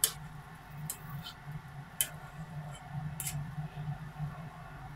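Metal mesh skimmer clinking against a saucepan about five times, sharpest at the start, while skimming scum off kumquats simmering in syrup. A low steady hum runs underneath.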